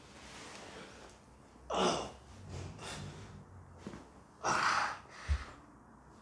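A man gasping sharply twice, about two seconds in and again near five seconds, in pain under deep-tissue pressure on his back. A brief low thump follows just after the second gasp.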